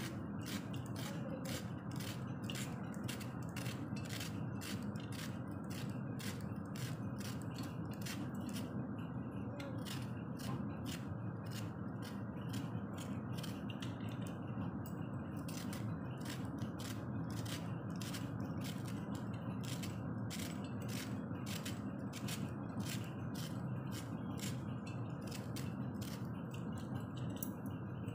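Small knife scraping the ridged skin off bitter gourds: a quick rasping stroke repeated over and over, about two a second, with a couple of brief pauses, over a steady low background hum.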